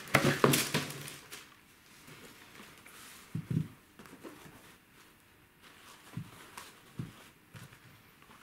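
Tissue paper rustling and crinkling for about the first second, then handling of sneakers on a table, with a few soft knocks as a shoe is set down and picked up.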